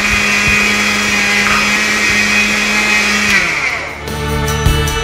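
Electric mixer grinder dry-grinding roasted dals, dried red chillies and spices to a fine sambar masala powder in its small steel jar, with a loud steady motor whine. A little over three seconds in it is switched off and the whine sinks as the motor winds down, and background music comes in.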